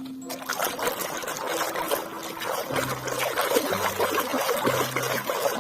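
Water running and trickling as a muddy toy is rinsed clean; it starts suddenly just after the beginning and runs on with a crackly, splashing texture.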